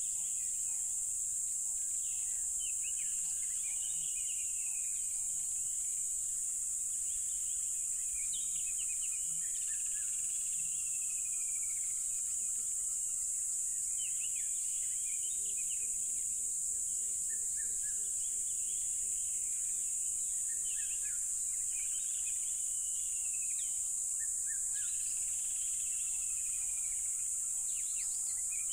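Dense chorus of crickets making a steady, high, unbroken trill, with birds calling over it now and then in short chirps and falling whistles. A lower pulsing call comes in for a few seconds in the middle.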